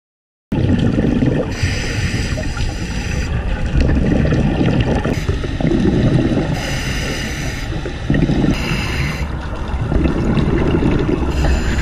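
A scuba diver's regulator breathing, heard underwater: hissing inhalations alternate with low, bubbling exhalations every second or two.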